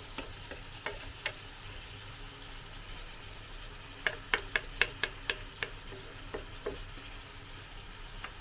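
A metal utensil clinking and knocking against a cooking pot as chicken is stirred, with a quick run of about eight knocks a little past the middle. Under it a faint steady sizzle of the chicken cooking in the pot.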